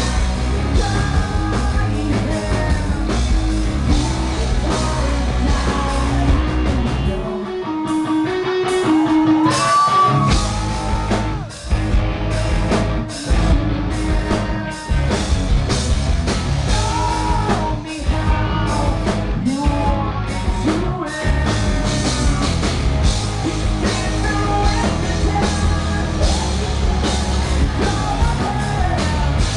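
Rock band playing live: distorted electric guitars, bass and drum kit with a male singer. About seven seconds in, the bass and drums drop out for a few seconds under a sparse guitar figure, then the full band comes back in, with several short stops after.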